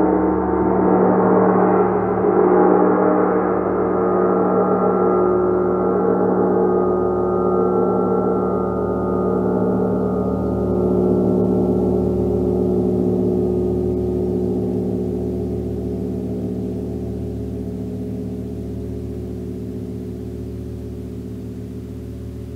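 Large hammered gong ringing out in a sustained wash of overlapping tones with a slow wavering pulse in the low hum. It gradually dies away, the higher overtones fading first.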